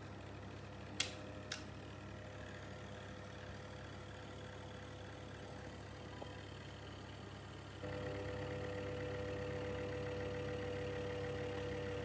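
BLACK+DECKER BHDC201 portable space heater running with a steady motor hum and fan whir. Two short clicks come about a second in. About eight seconds in, the hum suddenly becomes louder and its tone stronger.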